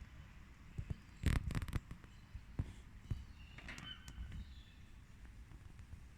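Plastic toy parts clicking and knocking as they are handled and fitted together, with a quick cluster of clicks about a second in and a few single clicks after.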